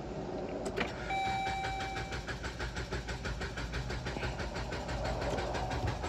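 2013 Dodge Journey engine cranking on its starter without firing, a fast, even chugging that starts about a second in: a crank-no-start, with the scan tool reading no engine RPM. A steady tone sounds for about a second as the cranking begins.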